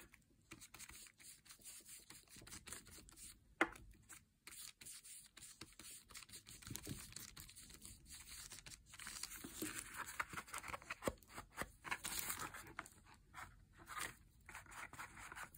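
Foam ink-blending tool rubbed over a paper tag: faint, scratchy swiping strokes that come thicker in the second half, with one sharp knock about four seconds in.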